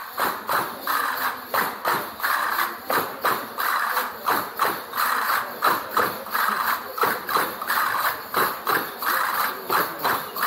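Rhythmic hand percussion played in a street procession: a steady beat of sharp strokes, about two to three a second, each followed by a short bright rattle.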